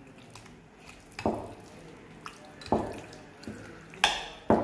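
Chicken pieces in a thick curd-and-spice tandoori marinade being stirred with a spoon and worked by hand in a bowl: several separate wet squelches and spoon scrapes against the bowl, about a second apart, with two close together near the end.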